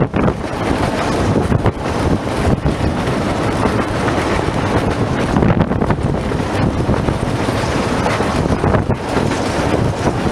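Narrow-gauge passenger train running along the line: a steady rumble of wheels and carriages with irregular clacks over the rails, and wind on the microphone.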